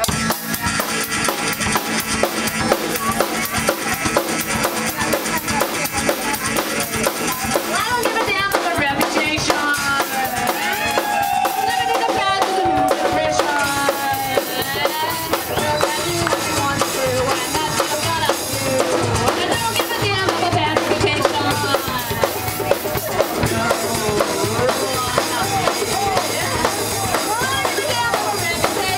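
Live band playing a fast punk-rock song, with a drum kit keeping a rapid, steady beat of kick, snare and rim hits under guitar and bending melodic lines.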